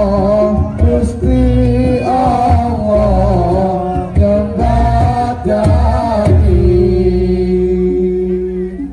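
Music with a singing voice over a steady low drum beat; near the end the singer holds one long note.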